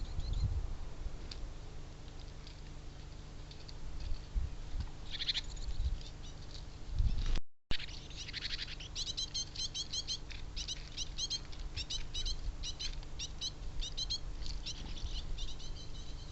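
Small birds chirping at a feeder. There are scattered high calls and low thumps at first, then, after a cut about seven seconds in, a long run of quick, high chirps repeated several times a second.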